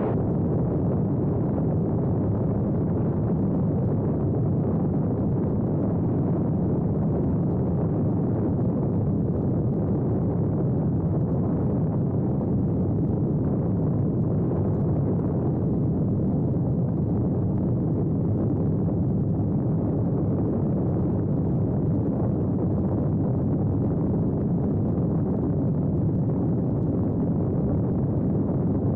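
Calidus autogyro in level cruising flight: a steady, unbroken rumble of engine and propeller mixed with rushing air.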